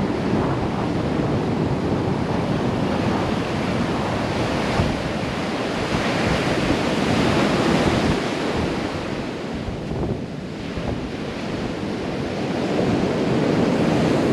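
Surf breaking and washing onto the beach, with wind buffeting the microphone. The wash swells about halfway through, eases off, then builds again near the end.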